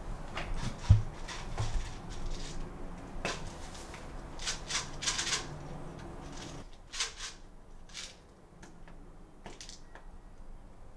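Handling noises: a sharp thump about a second in, then scattered clicks and rustles as small objects are handled, over a low hum that drops away about two-thirds of the way through.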